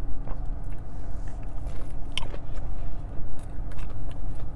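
Close-up chewing of a fried chicken tender, picked up by a clip-on microphone, with a few short mouth clicks, the clearest about two seconds in. A steady low hum runs underneath.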